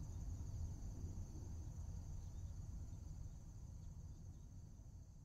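Faint night ambience of crickets chirring steadily over a low rumble, fading out near the end.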